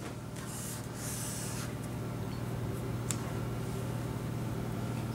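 Steady low hum, with soft rustles of legal-pad sheets being shifted by hand during the first two seconds and a single light click about three seconds in.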